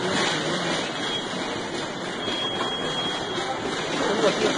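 Steady background noise of a store, a hiss-like hubbub with faint voices; a faint high tone sounds for about a second, a little past two seconds in.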